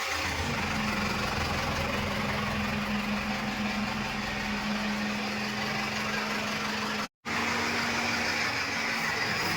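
Backhoe loader's diesel engine running steadily with an even hum. The sound cuts out completely for an instant about seven seconds in.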